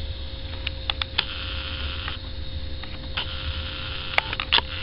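Low, steady rumble of the road sweeper and excavator engines heard from inside through a window, with a hiss that swells and fades. Several sharp clicks and ticks stand out over it, the loudest near the end.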